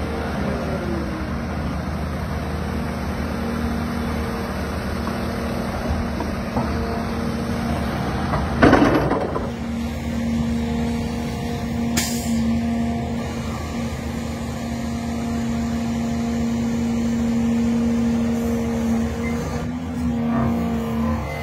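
Caterpillar 336 excavator's diesel engine running steadily under working load, with a loud rushing burst about a third of the way in and a single sharp click a few seconds later.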